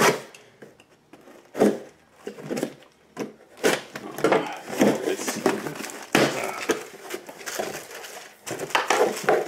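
Packing tape being torn off a cardboard shipping box and the cardboard flaps pulled open: a run of short, rough tearing and scraping sounds at uneven intervals.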